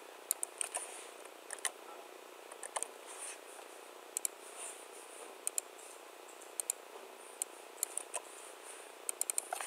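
Computer mouse and keyboard clicks: single clicks scattered throughout, with a quick run of key presses near the end.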